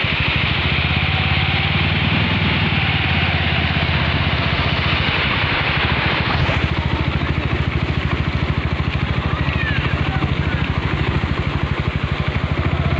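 Small motorcycle or scooter engine running steadily while the bike is ridden slowly. In the first half, floodwater rushes across and over the edge of the road, and the hiss fades about halfway through as the bike leaves the water.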